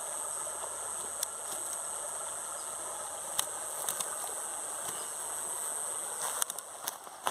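Steady rush of flowing river water, with a few sharp clicks and taps scattered through it and more of them near the end.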